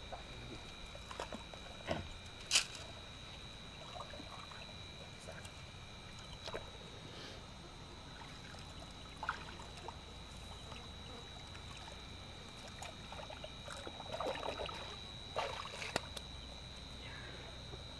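Hands groping and splashing in shallow muddy water: scattered small splashes and sloshes, busier for a couple of seconds near the end.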